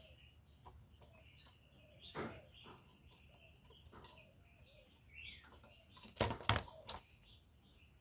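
Spotted dove moving and flapping in a wire cage close to the microphone: a soft knock about two seconds in, then a quick cluster of louder knocks and wing flutters about six seconds in. Faint bird chirps run underneath.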